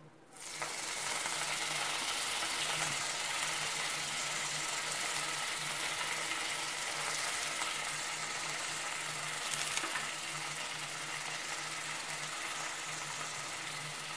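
Chopped coriander leaves sizzling in hot oil in a nonstick kadai, starting as the leaves go in about half a second in and then holding steady as they fry.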